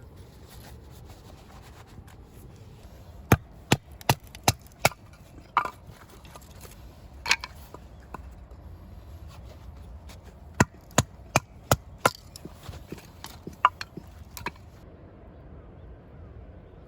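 Sharp knocks on wood: two runs of about five strikes, two to three a second, with a few single knocks between and after.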